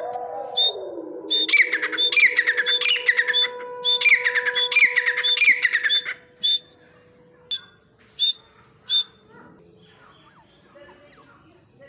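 Grey francolin calling: two bouts of fast, repeated shrill notes, then a few single sharp notes about a second apart. A steady hum runs underneath for the first half.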